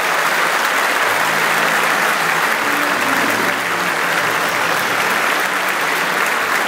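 A crowd applauding with steady, dense clapping.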